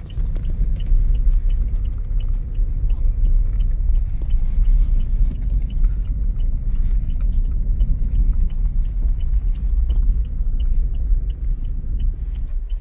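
Car driving on an unpaved dirt road, heard from inside the cabin: a steady, heavy low rumble of tyres and road noise.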